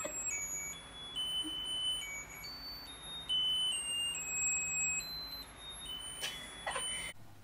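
Musical greeting card's sound chip playing a tinny beeping tune, one pure note at a time, which cuts off abruptly near the end.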